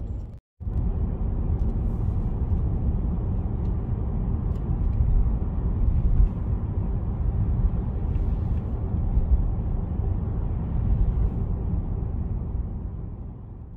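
Steady low rumbling noise that starts after a brief break and fades out near the end.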